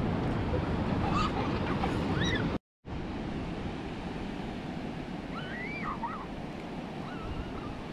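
Ocean surf washing steadily, with wind on the microphone; it drops out to silence for a moment between two and three seconds in and comes back a little quieter. A few faint high cries rise and fall over it.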